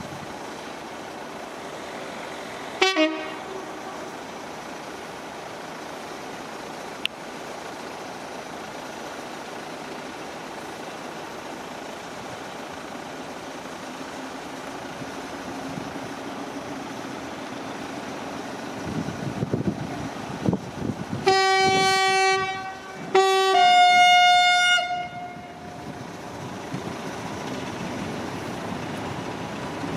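Class 14 diesel-hydraulic locomotive approaching, its engine rumble growing, then its horn sounding twice: a low note for about two seconds, then, after a short break, a higher note for about two seconds. A brief falling chirp sounds about three seconds in.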